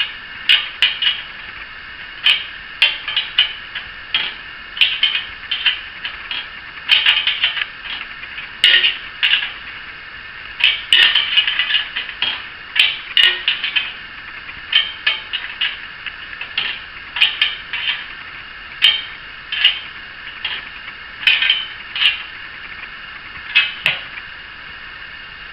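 A wrench working a nut onto a bolt, with many short, irregular metal clicks and rattles in quick clusters, as a butt-plate bolt is tightened and then backed off just enough to leave a little play.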